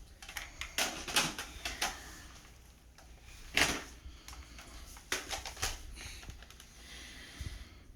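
Plastic clicks and clacks of a Nerf blaster being handled and worked: a quick run of clicks, one louder clack a few seconds in, then a few more clicks.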